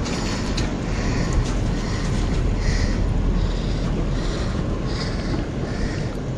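Wind buffeting the action-camera microphone, a steady low rumble, with soft hissy swells coming and going about once a second.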